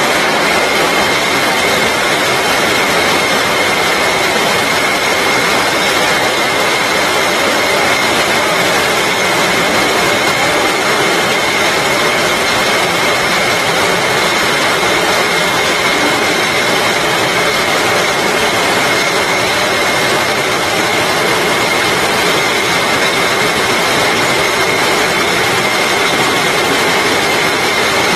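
Rotary bottle labelling machine running at production speed: a steady, dense mechanical din with a constant high-pitched whine.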